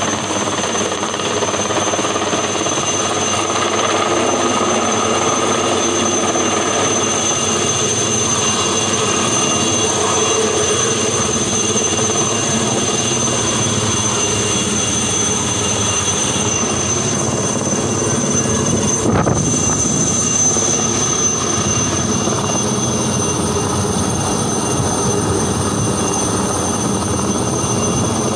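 Aérospatiale SA 315B Lama helicopter running steadily, its Turbomeca Artouste turboshaft engine and rotor giving a steady high whine over a dense rotor noise.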